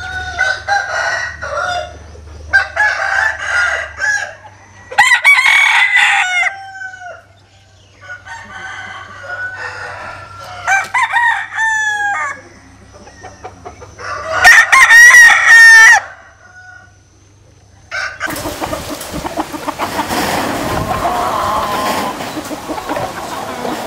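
Bantam roosters crowing again and again, about six crows in the first sixteen seconds, several ending in a falling tail, the loudest around fifteen seconds in. From about eighteen seconds on, a steady hiss of background noise takes over.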